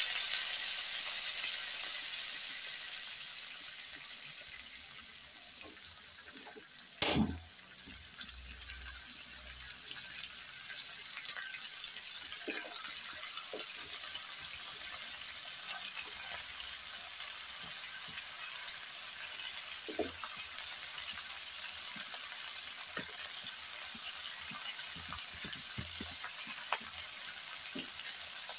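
Shredded cabbage and potato pieces sizzling in hot mustard oil in a karahi, with scattered small crackles. The hiss is loudest as the vegetables go in, fades over the first several seconds, then settles into a steady sizzle. One sharp knock about seven seconds in.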